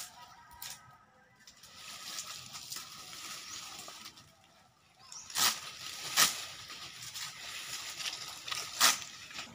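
Coconut fronds rustling and swishing as they are lifted and handled, then three sharp hacks of a bolo knife into a frond, the second and third about two and a half seconds apart.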